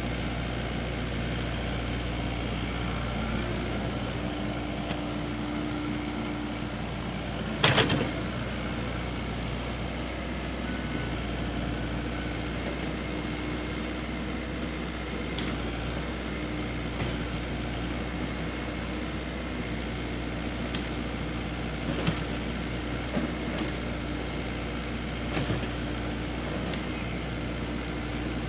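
Excavator engine running steadily, with one loud clank about eight seconds in and a few lighter knocks later on.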